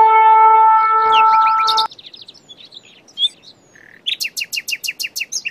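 A long, steady horn blast holds for almost two seconds and then cuts off. After it a common nightingale sings varied chirps and whistles, ending in a fast run of repeated notes.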